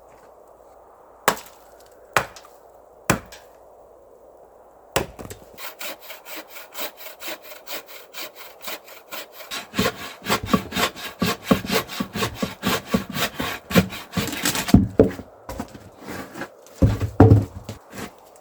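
Hand saw cutting through wood in a long run of quick, even strokes, about three to four a second, after a few separate sharp knocks on wood. A few heavier thuds come near the end.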